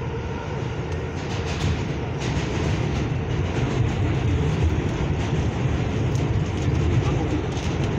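New York City Subway 4 express train running along the track, heard from inside the car: a steady low rumble with scattered clacks and rattles from the wheels and car body.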